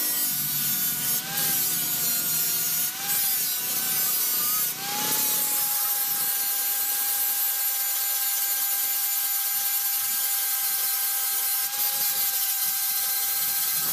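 Small electric power tool running at a steady high pitch while it grinds or cuts metal, with a hiss over the tone. Its pitch sags briefly three times in the first five seconds as it is pressed into the work, then holds steady.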